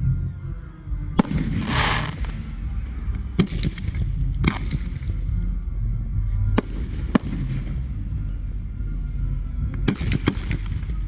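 Fireworks going off over music: sharp bangs at irregular intervals, the first followed by a crackling shower lasting under a second, and a quick cluster of several bangs near the end.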